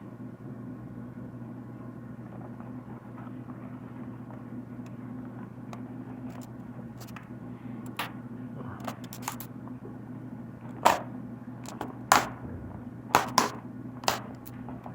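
Plastic packaging being handled and opened during an unboxing: scattered sharp clicks and snaps, a handful of them loud, from about halfway through. A steady low hum runs underneath.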